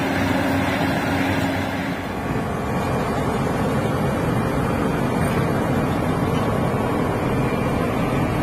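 Heavy diesel engine of the machinery running steadily, with wind noise on the microphone. A steady hum drops out about two seconds in, leaving a rougher rumble.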